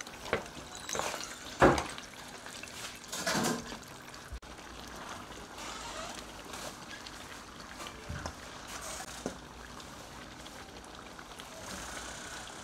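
Oxtail simmering in gravy in a frying pan, with a metal spoon knocking and scraping against the pan in the first few seconds. After that comes a steady simmering hiss as sliced vegetables are dropped in.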